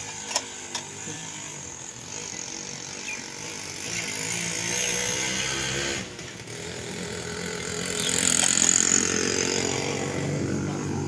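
A small engine running steadily, dipping briefly about six seconds in and growing louder near the end.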